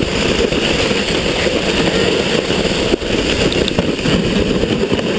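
Sled sliding fast over snow: a loud, steady rushing and scraping of the sled on the snow, mixed with wind buffeting the microphone.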